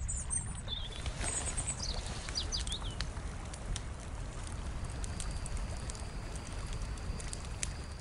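Outdoor ambience: a steady low rumble with a few quick bird chirps in the first three seconds, then faint scattered clicks.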